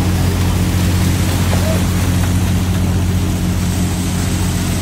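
A fishing boat's engine running with a steady low hum, under the rushing splash of sea water pouring off a brail net of thrashing yellowtail as it is hoisted from the seine.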